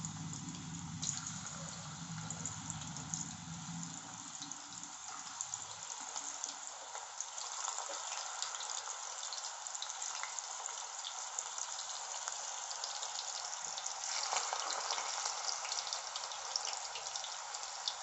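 Hot oil sizzling and crackling in a kadhai as cubes of par-boiled elephant foot yam (suran) deep-fry, with a steady hiss of fine crackles. It gets louder in the last few seconds after more pieces go in. A low hum runs under it in the first few seconds.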